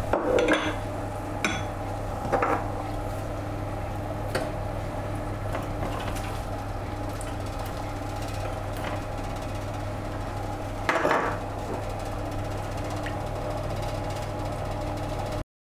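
Metal tongs and utensils clinking against a wire rack and metal baking tray, a handful of short sharp knocks with the loudest near the start and about eleven seconds in, over a steady background hum.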